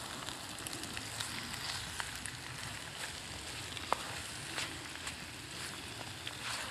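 Food sizzling in a frying pan on a wood-burning camp stove, with a spatula scraping and clicking against the pan as the food is stirred; one sharper click comes about four seconds in.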